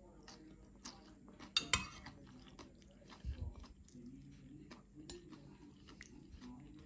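Metal fork and spoon clinking against a ceramic bowl of curry, with soft chewing between the clinks. The loudest clink comes about one and a half seconds in, another just after five seconds, with a dull knock around three seconds.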